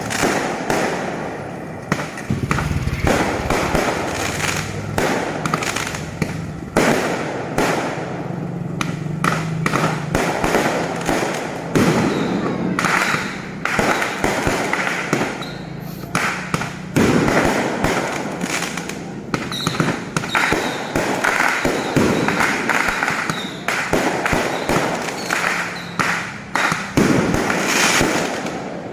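Fireworks and firecrackers going off one after another: a continuous string of bangs and crackles at irregular intervals.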